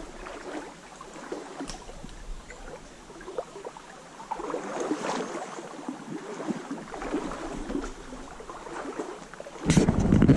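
Small woodland trout creek running and rippling over a shallow riffle. Near the end, a sudden loud rumble of wind or handling noise on the microphone.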